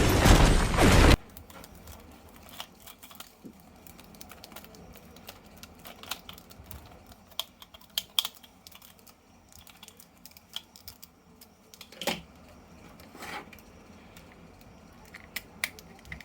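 Loud music cuts off about a second in. After that come faint, scattered clicks and taps of plastic action figures and their packaging being handled, with a sharper knock about twelve seconds in.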